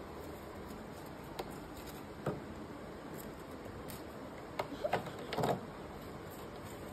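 A kitten eating from a small cake container on a stone floor: scattered clicks and scrapes as the container is knocked and shifted about, with a busier cluster of them about two-thirds of the way through, over a steady background hiss.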